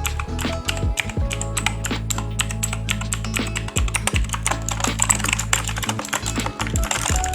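Typing test on a T60 RGB compact mechanical keyboard: a fast, continuous run of clicking keystrokes, recorded close up, over background music.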